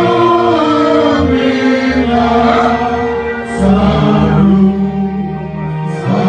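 Church choir singing a Yoruba gospel praise song, with held, sustained notes over instrumental backing whose bass notes change every second or two.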